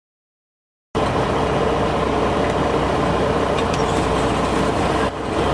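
Straight-piped Caterpillar C15 diesel engine of a semi truck, running with no muffler: a loud, steady exhaust note that cuts in abruptly about a second in and dips briefly near the end.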